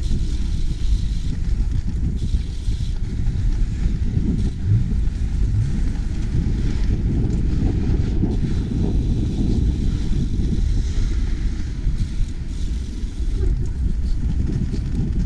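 Steady low wind rumble on a chest-mounted GoPro's microphone while riding a bicycle, mixed with the noise of surrounding city traffic.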